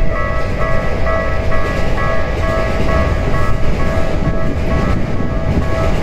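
Japanese level crossing's electronic warning bell ringing over and over in a quick even rhythm, about two rings a second, over a steady low rumble.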